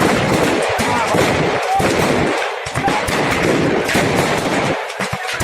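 Firecrackers going off in a dense, rapid string of sharp bangs and crackles over a steady noisy rush: stocked fireworks exploding as the fire reaches them.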